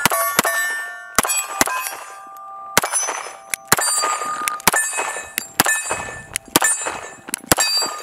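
Pistol fire at steel plate targets: a string of sharp shots, each hit followed by the ringing clang of a struck steel plate. The shots come roughly once a second, some in quick pairs, with a short pause about two seconds in.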